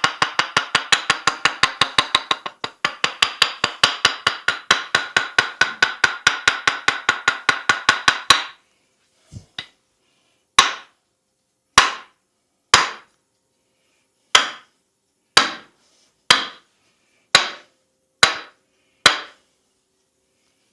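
Hands striking the head in percussive massage tapping: a fast, even run of about five strikes a second that stops about eight seconds in. It is followed by about nine single sharp strikes roughly a second apart.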